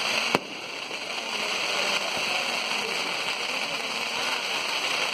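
Fireworks going off: a steady hiss, with one sharp bang about half a second in.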